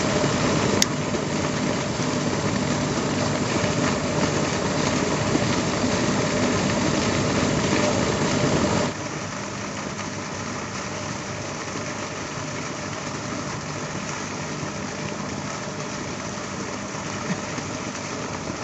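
A steady engine-like drone with a constant low hum, which drops abruptly in level about nine seconds in and then carries on quieter; a single sharp click about a second in.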